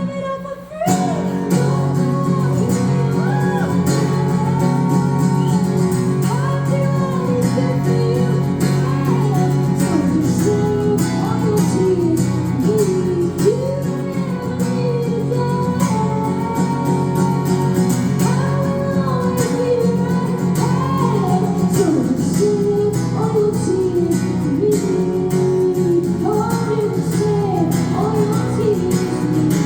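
Live female singing over a strummed guitar. The music dips briefly at the very start, then voice and guitar carry on steadily.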